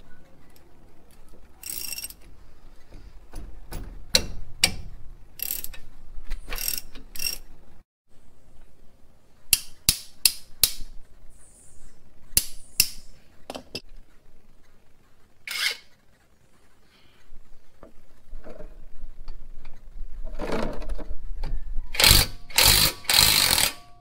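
Hand tools working on a car's front brake caliper: scattered sharp metallic clicks, taps and clinks, building to a denser, louder clatter near the end.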